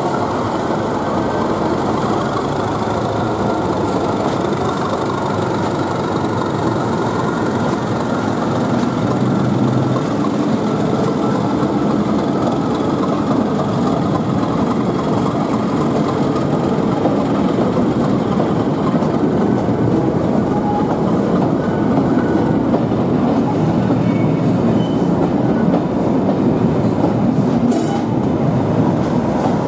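Class 37 diesel-hauled train pulling away: the locomotive's English Electric engine working as it moves off, then the coaches rolling past with their wheels clattering over the rail joints. A few short sharp high sounds come near the end.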